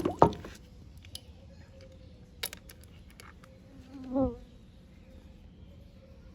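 A few light clicks of metal parts being handled while a mechanical diesel injection pump is taken apart, over a faint steady buzz that swells briefly about four seconds in.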